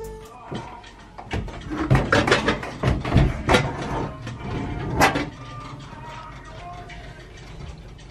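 A run of knocks and clatters over the first five seconds or so, the sharpest about five seconds in, then quieter.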